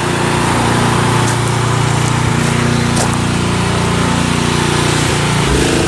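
Small gas engine of a trailer-mounted hot-water pressure washer running steadily under load, with a hiss of noise above its drone.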